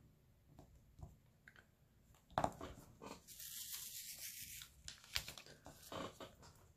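Diamond painting supplies being handled: a sharp knock, then a few seconds of crinkling, tearing-like plastic rustle and a few light clicks.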